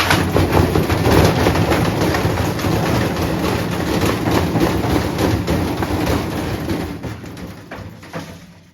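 Servis washing machine being run to destruction: a loud, dense clattering and banging over a low rumble that eases off over the last couple of seconds.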